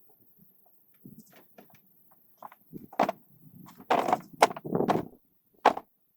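Irregular wooden knocks and thuds of split firewood logs being handled and stacked, the loudest coming in a cluster a few seconds in.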